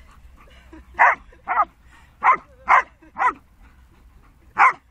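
Belgian Malinois barking six times in short, loud barks, excited during play.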